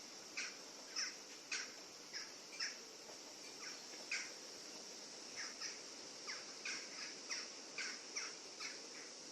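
Birds calling in trees: short, sharp calls repeated at uneven intervals, about two a second, over a steady background hiss.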